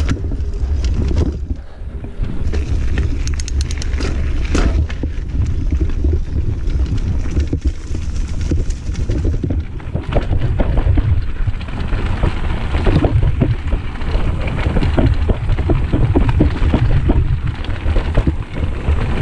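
Wind rumbling on the microphone of a mountain bike riding down a dirt singletrack, with tyres rolling on the dirt and the bike rattling and clicking over bumps.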